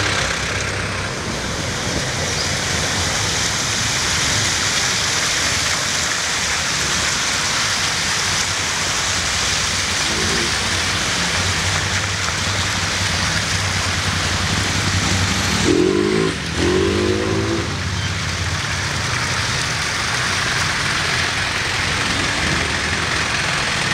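Street traffic: a steady hum of vehicle engines with a hiss of water and tyre noise, as from roadside fountains splashing. About two-thirds of the way through, a brief louder pitched sound rises and falls as something passes close.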